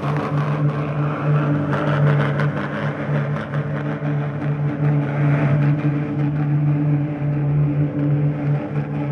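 Engine of a loaded four-wheel-drive truck running at steady revs while stuck in thick mud, with a few knocks and clanks in the first three seconds.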